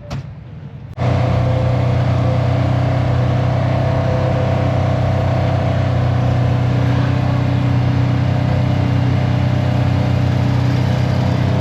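Off-road vehicle engine running steadily while riding, heard from on board. It cuts in loud and sudden about a second in, after a quieter low hum, and holds an even pitch throughout.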